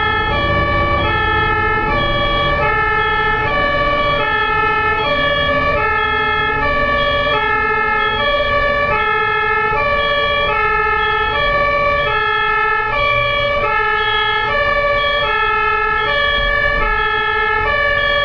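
German ambulance two-tone siren (Martinshorn) sounding steadily, alternating between a low and a high pitch about every two-thirds of a second. A low road rumble runs underneath.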